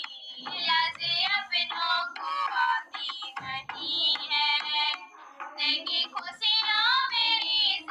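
A high female voice singing a Hindi devotional bhajan in phrases that glide and waver in pitch, with short breaks between lines.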